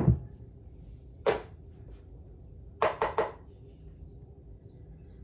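Small handling sounds of transmission valve-body parts being oiled on a workbench: a sharp click at the start, a short noisy squirt or scrape about a second in, and three quick ones in a row around three seconds in.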